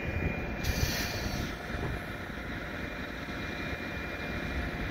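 Steady low outdoor rumble, with a brief hiss about a second in.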